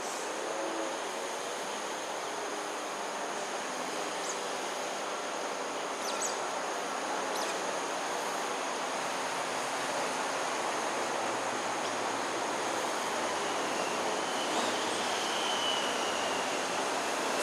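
Steady rushing noise that slowly grows louder, with a few faint, short, high chirps and a brief thin whistle near the end.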